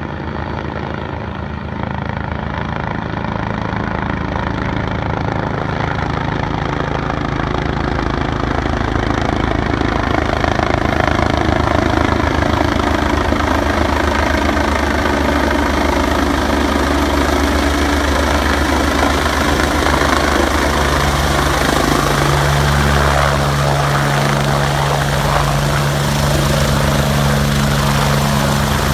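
Helicopter coming in to land: its rotor and engine sound grows louder over the first ten seconds as it closes in, then holds steady and close as it descends to a low hover, the low rotor tone shifting about two-thirds of the way through.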